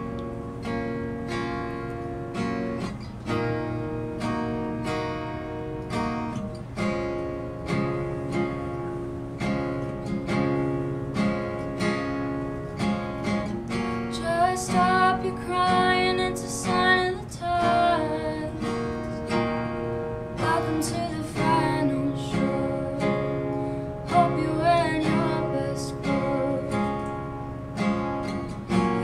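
Acoustic guitar with a capo playing slow, evenly paced chords. A woman's singing voice comes in about halfway through, with vibrato on held notes.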